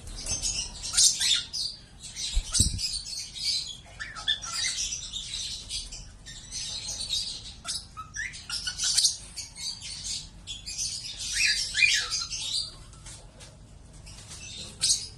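A small flock of lovebirds chattering, with dense high-pitched chirps and squawks that thin out to a few calls near the end. A short low thump about two and a half seconds in.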